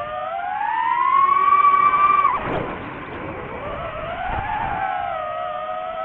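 DJI FPV drone's motors whining, the pitch climbing as throttle comes on and loudest about a second and a half in. The whine drops sharply about two and a half seconds in, then climbs again and holds fairly steady.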